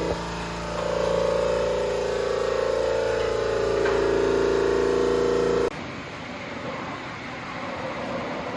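Turbocharged side-by-side engine running steadily at high revs, its pitch rising and falling slightly. It cuts off abruptly a little over halfway through and gives way to a rough, noisy rumble.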